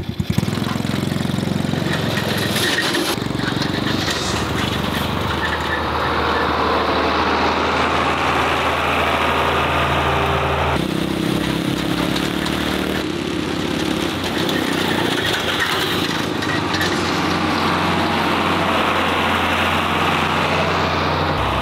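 Farm tractor engine running steadily, with a change in its pitch about eleven seconds in.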